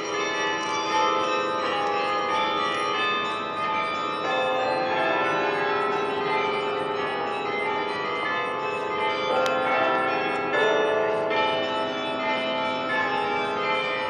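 Carillon bells of Duke Chapel's tower ringing, with many pitched bell tones overlapping and dying away one after another.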